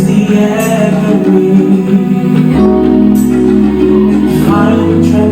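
Live worship band playing an instrumental passage: sustained chords over a bass line that changes every couple of seconds, with guitar.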